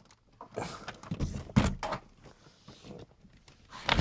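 Handling noise of cables and plastic chargers being moved about: irregular rustling and light knocks, with a sharper knock about one and a half seconds in and another near the end.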